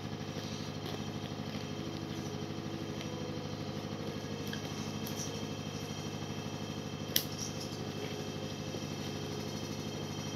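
Scissors cutting a plastic and cardboard blister pack: a few light clicks and one sharp snip about seven seconds in, over a steady low hum.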